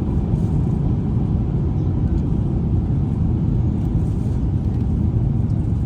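Steady low rumble of an Airbus A350-900 in motion, heard inside the economy cabin.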